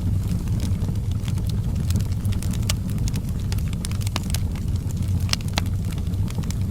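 Fire in a fireplace crackling: irregular sharp pops and snaps, several a second, over a steady low rumble of the flames.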